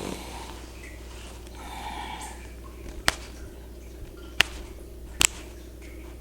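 Three sharp cracks, a second or so apart, in the second half: joints popping under chiropractic manipulation, over a steady low hum.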